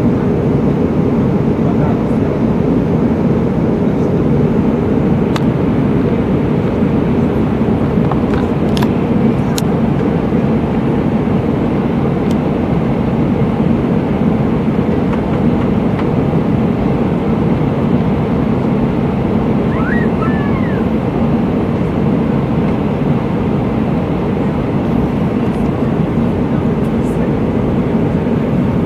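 Steady cabin noise of an Airbus A319 airliner in flight: its jet engines and the airflow over the fuselage make an even, unbroken drone.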